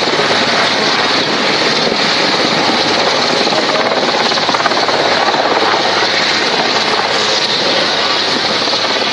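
Two Atlas Oryx medium-lift helicopters hovering low overhead: a loud, steady din of rotor and turbine noise with a rapid, even rotor beat.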